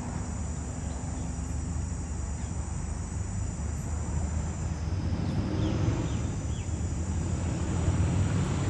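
Outdoor ambience: a steady high-pitched insect chirring that fades out about five seconds in, over a low, steady rumble of distant traffic.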